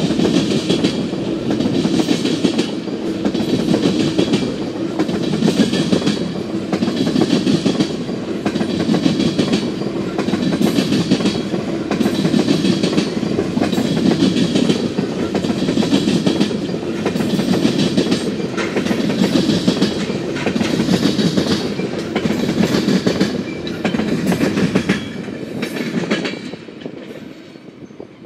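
Freight train of tank cars rolling slowly past, its wheels clacking over the rail joints about once a second over a steady rumble. The sound fades near the end as the last cars go by.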